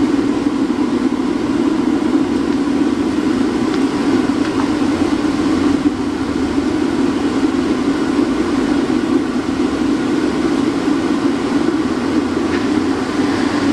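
Waste-oil burner running with its air blower: a steady, even rumble of forced air and burning oil vapour.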